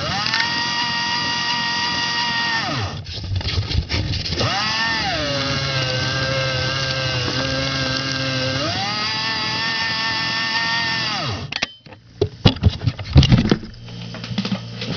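Electric shredder motor spinning up with a high whine, stopping, then starting again. About a second after restarting it slows to a lower pitch for a few seconds under the load of the plastic door card being cut, then speeds back up and winds down to a stop. Irregular knocks and clatter follow near the end.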